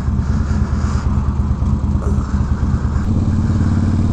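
Harley-Davidson FLHT's Twin Cam V-twin running at road speed through a 2-into-1 Vance & Hines Pro Pipe exhaust. About three seconds in, the engine note settles into a steadier drone.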